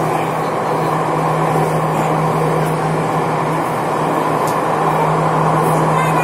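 Jakarta MRT electric metro train running, heard from inside the passenger car: a loud, steady rumble and rush of running noise with a constant low hum underneath.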